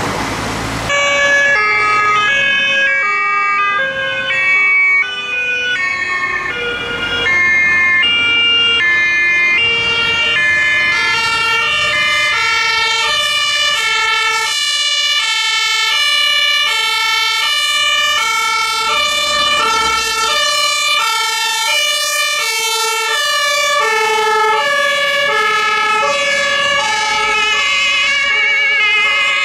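Several German two-tone emergency-vehicle sirens (Martinshorn) sounding together, each stepping back and forth between a high and a low note, out of step with one another. They start about a second in, after the noise of a passing vehicle.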